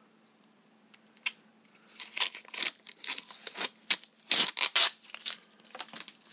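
A blue plastic wrapper being torn and crinkled open by hand: a single click about a second in, then from about two seconds in a quick, uneven run of crackles and rips.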